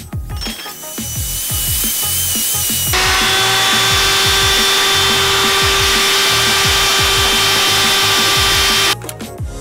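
Electric wood router running at high speed with a steady whine. It grows louder about three seconds in and cuts off suddenly near the end.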